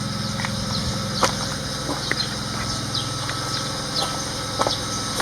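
A steady low engine hum, like a vehicle idling, with scattered light clicks and brief high chirps of small birds.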